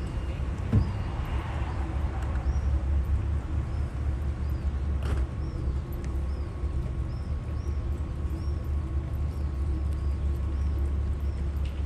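Steady low engine rumble from a large yacht manoeuvring to dock, with a faint steady mechanical hum. Small birds chirp in short high notes over it throughout. A knock comes a little under a second in.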